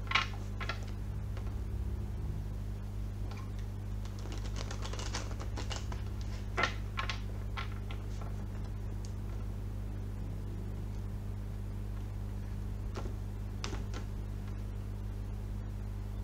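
A deck of tarot cards being shuffled by hand: soft sliding and quick slapping clicks that come in irregular bursts, busiest about four to six seconds in. A steady low hum sits underneath.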